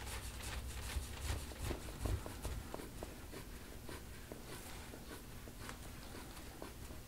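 Faint rubbing and scraping with scattered soft clicks from hands-on soft-tissue work on a patient's back, with a few low thumps in the first couple of seconds.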